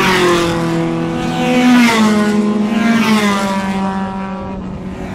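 Racing cars' engines revving hard as several cars approach along the circuit, their pitch rising and falling repeatedly.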